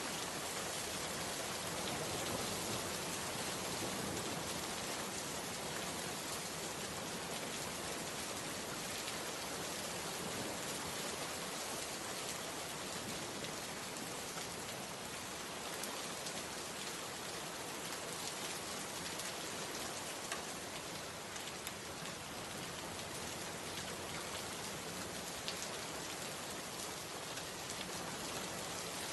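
A steady, even rain-like hiss with scattered faint ticks, unchanging throughout.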